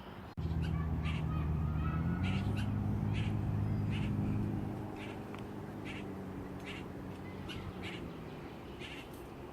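Short harsh bird calls repeated every half second to a second, most likely red-winged blackbirds calling. A low steady hum starts abruptly about half a second in, is the loudest sound for the first few seconds, then fades.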